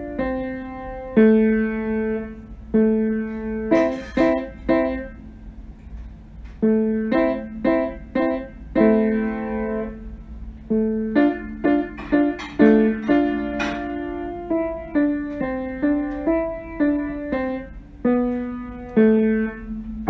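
Background music played on piano: a slow line of single notes and chords, each struck note fading away.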